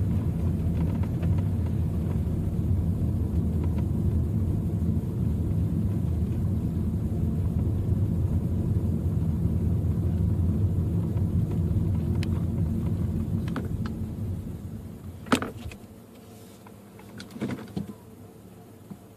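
Road noise inside a moving car on a wet road: a steady low rumble that dies away about fifteen seconds in as the car slows to a stop. A sharp click follows, then a few smaller knocks near the end.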